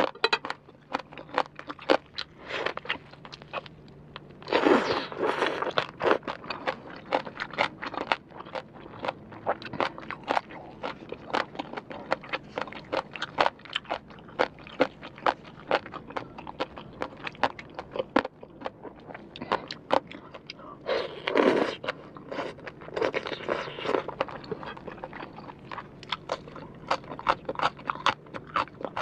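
Close-up crunchy chewing of crisp rau tiến vua, a lettuce-family stem vegetable, in rapid crackling crunches, with two louder, longer stretches about five seconds in and again around twenty-one seconds.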